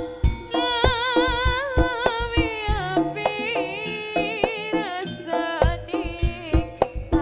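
Live jaranan accompaniment: a reedy, wavering melody over rapid, driving drum strokes.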